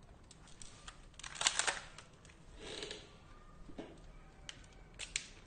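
Pistols being handled: a quick cluster of sharp metallic clicks and clacks about one and a half seconds in, a soft rustle around three seconds, and two more clicks near the end.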